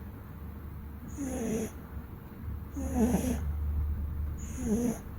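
Domestic cat snoring in its sleep, three snores about a second and a half apart. Each snore has a low rasp and a thin high whistle.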